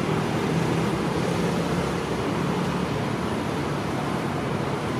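Steady rumble and low engine drone of a diesel-hauled passenger train rolling slowly into a station.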